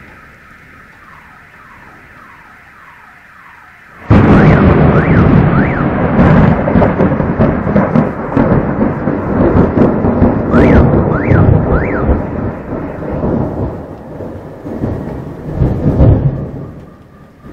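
Thunder from a lightning strike: a sudden loud crack about four seconds in, after a quieter stretch, then a long rolling rumble with several swells that fades near the end. An alarm wails over it in quick rising-and-falling tones, three at a time, twice.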